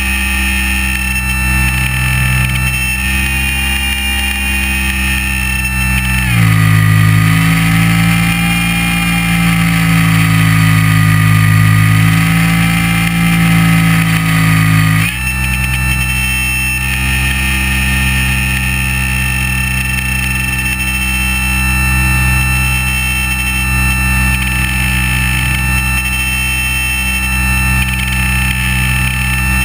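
Onboard sound of a GWS SlowStick's electric motor and propellers, a steady whine made of several fixed pitches. About six seconds in the pitch drops suddenly and the low hum strengthens; about fifteen seconds in it jumps back to the first pitch, as with a throttle change.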